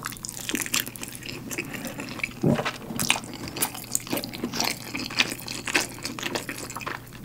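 Close-miked chewing of a mouthful of rice ball: a string of sticky mouth clicks and smacks at an irregular pace. There is one brief, louder low sound about two and a half seconds in.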